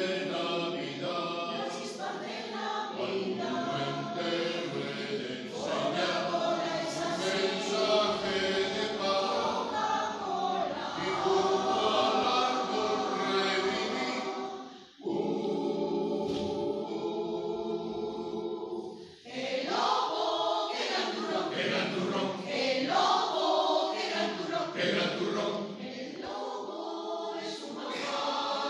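Mixed choir of men's and women's voices singing together under a conductor, with two short breaks between phrases, one about halfway through and another a few seconds later.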